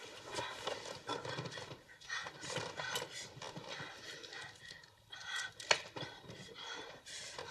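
Heavy, ragged breathing and whimpering moans of a person in heroin withdrawal, with a sharp knock about three quarters of the way through.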